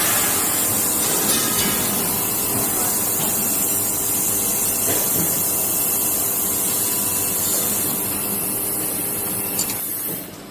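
Automated fiber laser welding machine running a weld: a loud, steady high hiss that cuts off abruptly shortly before the end.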